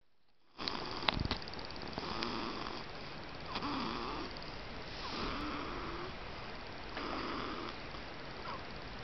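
A 20-day-old snoring, one noisy snore with each breath, about every second and a half. A few sharp clicks come about a second in.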